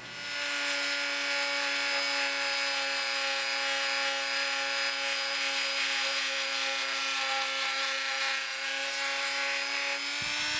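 Dremel rotary tool running at a steady high speed, a whine, its small sanding drum rubbing against the curved steel neck of a screwdriver shank to smooth it.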